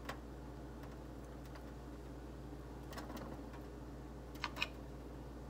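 Metal fork clicking lightly against a plate while picking up food. There is a faint click at the start and two sharper clicks close together about four and a half seconds in, over a steady low hum of room tone.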